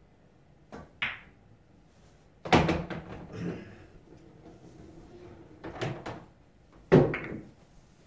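Pool balls on a pool table: a light click and a sharper clack about a second in as the cue strikes the cue ball and it hits an object ball, then several louder knocks and thuds with a brief rattle as balls strike cushions and drop into pockets, the loudest a little past two seconds in and again near the end.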